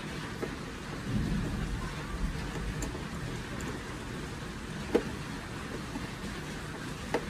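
Small screwdriver turning a screw in the plastic underside of a toy oven, with scraping and handling of the hard plastic case. Two short sharp clicks, about five seconds in and near the end.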